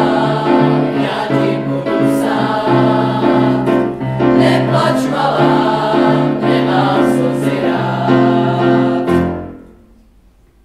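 Boys' choir singing sustained chords. The song ends about nine and a half seconds in, the last chord cutting off and dying away briefly in the room.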